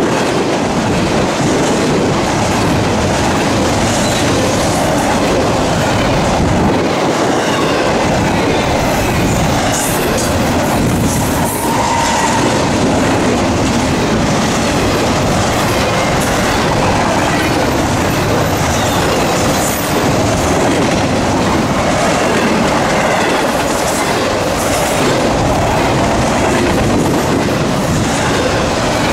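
Double-stack intermodal freight cars rolling past at speed: a steady, loud rush of steel wheels on rail, with a short squeal about twelve seconds in.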